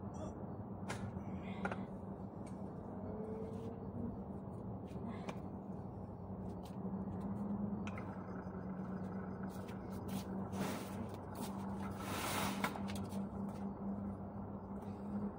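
Wire shopping cart being worked on by hand: scattered light metal clicks and knocks from its frame and casters, with a short scraping rasp twice near the end, over a steady low hum.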